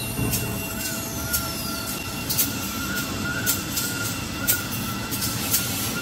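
Glue-laminating toilet paper and kitchen towel converting line running: a steady machine hum with a steady high whine and irregular sharp ticks.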